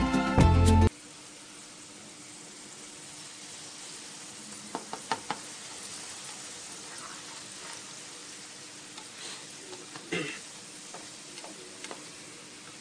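Background music cuts off about a second in. Then oil heating in a stainless steel pot sizzles faintly and steadily, while a steel ladle stirring it knocks against the pot a few times, loudest around the middle and again two thirds of the way through.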